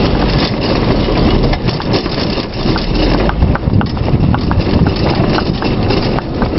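Hooves of a pair of harnessed donkeys clip-clopping on a tarmac road. Underneath is the steady low noise of the carriage rolling along.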